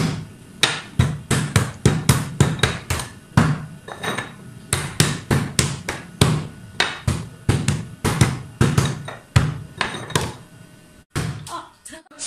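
Quick, repeated slaps and knocks on a wooden tabletop, about three a second in an uneven rhythm, breaking off briefly near the end.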